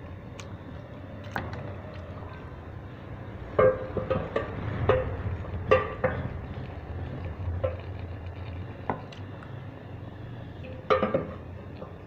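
Metal clinks and knocks against a cooking pot, about ten scattered through, over the low steady rumble of mutton pieces simmering in boiling spinach.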